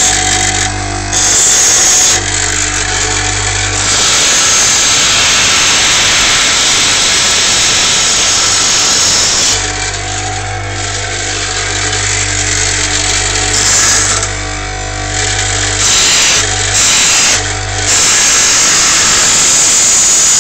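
Electric power tool running steadily while shaping a metal lock pick, a low hum under a loud rushing noise that eases off and comes back several times.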